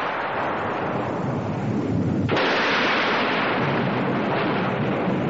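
Loud, thunder-like crashing rumble: a sudden crash about two seconds in that dies away into a low rumble.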